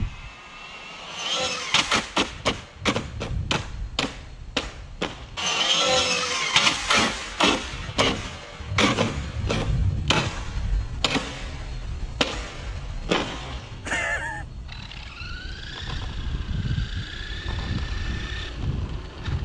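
Arrma Senton 6S RC truck's electric motor whining, broken by a long series of hard knocks and clatters for about thirteen seconds. Near the end the motor whine rises and holds steady. Wind rumbles on the microphone.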